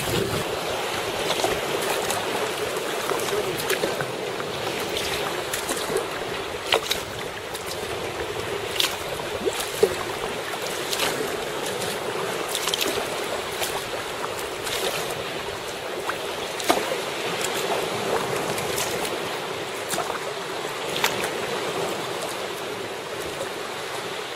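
Sea water sloshing and lapping around a paddled sea kayak, with waves washing on rocks. Sharp splashes come about every one to two seconds.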